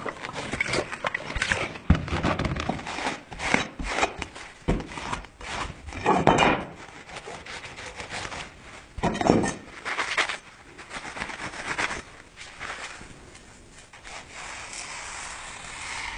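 Uneven rasping strokes of a hand tool worked against the steel of an old saw blade, with two louder, longer strokes about six and nine seconds in.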